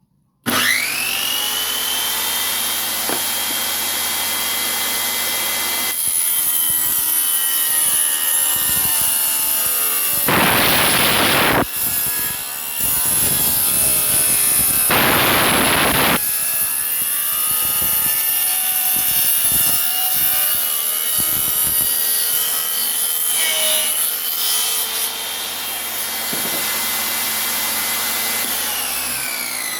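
Homemade table saw built from a 7-inch circular saw starting up with a rising whine and then running at a steady high whine. It cuts wood twice, each cut about a second long, and begins to spin down near the end.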